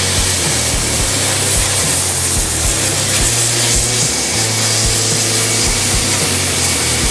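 Hand-held plasma cutter hissing steadily as it cuts through steel sheet, over music with a steady beat and bass line.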